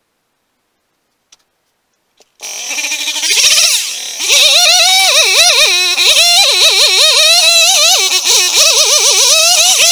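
Two-stroke chainsaw cutting in suddenly about two seconds in, then revving up and down in quick, repeated swings as it carves into wood.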